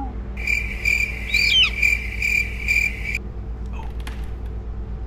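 Crickets-chirping sound effect: a steady, pulsing high chirr that starts just after the start and stops about three seconds in. It is the comic cue for an awkward silence after a joke falls flat.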